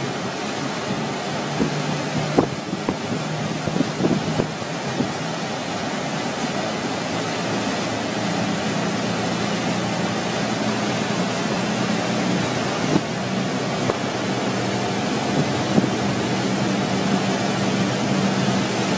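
Motorboat engine running steadily under the rush of its churning wake, with wind buffeting the microphone. A few sharp knocks come about two to four seconds in.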